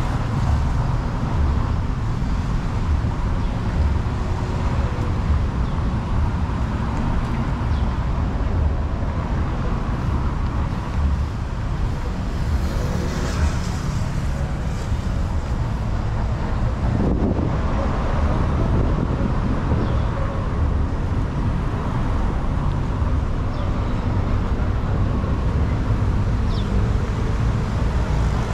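Steady city street traffic: cars and other motor vehicles running past in a continuous low rumble.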